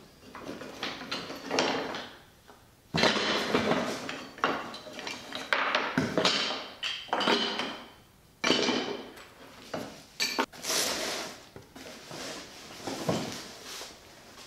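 Small wooden blocks and offcuts being scooped up by hand off a wooden table top and dropped into a cardboard box: a string of irregular hard clattering and knocking bursts, with a few sharp clicks.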